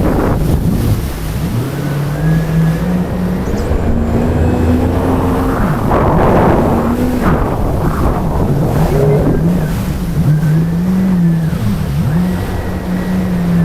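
Jet ski engine running, its pitch rising and falling as the throttle changes, with gusts of rushing noise near the start and again about six to seven seconds in.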